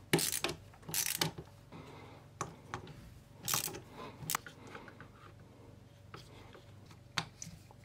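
Ratchet socket wrench clicking in short spells as the T25 screws are driven into a pressure washer's cylinder head.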